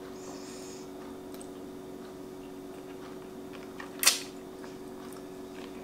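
Quiet room with a steady hum; about four seconds in, one short sharp mouth noise as a bite is taken from a grilled squid on a stick.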